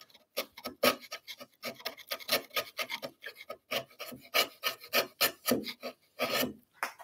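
A bench chisel pared by hand across wood with its flat side down, shaving off fibres in a quick run of short, irregular scraping strokes, about three a second.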